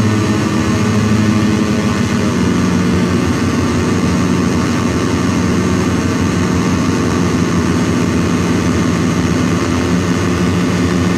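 Handmade METSÄÄN Dirty Drone Defrost synth droning: its paired square-wave oscillators, set slightly apart, give a thick, buzzing, steady drone that beats and shifts. The low notes change about two seconds in.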